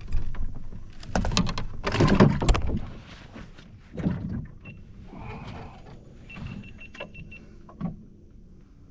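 Handling noises in a kayak: irregular knocks, clicks and scrapes against the hull, loudest in a burst about two seconds in, with single knocks later.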